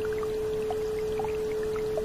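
A synthesized tone held steady at about 432 Hz, over babbling brook water with small gurgles and trickles scattered throughout.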